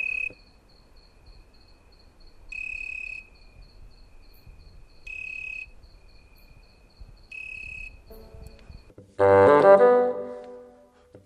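Crickets chirping: a high, thin, pulsing trill with louder stretches about every two and a half seconds. Near the end a loud brass-like musical note sounds and fades.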